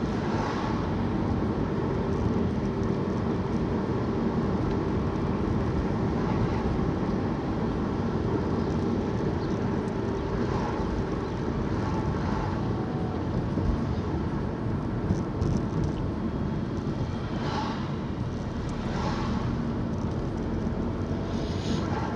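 Car being driven, with steady engine and tyre noise and a low hum. A few brief swishes come in the last few seconds.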